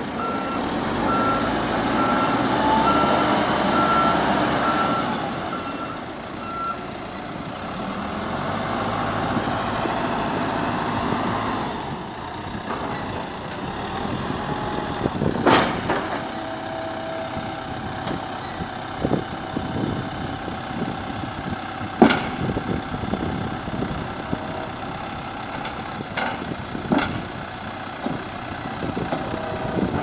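Volvo BL60B backhoe loader running, its reversing alarm beeping about twice a second for the first six or seven seconds, then stopping. The engine works harder in stretches while the front loader arm is raised and lowered, and a few sharp knocks come in the second half.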